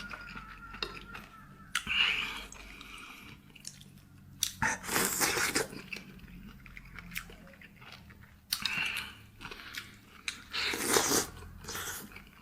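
A person chewing and crunching food close to the microphone, in several separate bouts of wet, crunchy eating noise.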